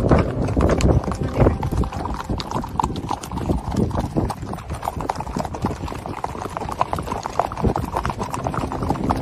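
Hoofbeats of Icelandic horses moving fast on a gravel track, a rapid, irregular patter of many hooves, over a steady low rush of wind.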